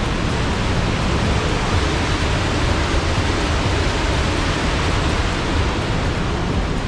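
White water of the Hammersbach mountain stream rushing through the Höllentalklamm gorge: a loud, steady rush of water without a break.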